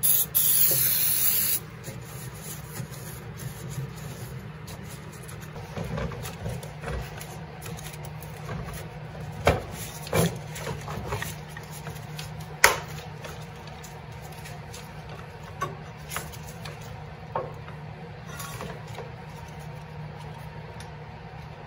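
Aerosol can of brake cleaner sprayed in one hiss of about a second and a half at the start. Scattered clicks and knocks follow as gloved hands work at the snowmobile's clutch and drive belt, over a steady low hum.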